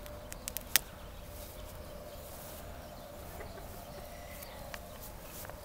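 A faint, steady buzz of flies around a freshly gutted chicken. In the first second a few sharp clicks and one louder snap come as a knife cuts through the legs to take the feet off.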